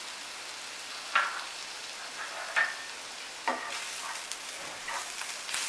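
Sliced onions with ginger paste and chilli powder sizzling in mustard oil in a nonstick frying pan, with a steady hiss. A wooden spatula stirs them, scraping and knocking against the pan several times.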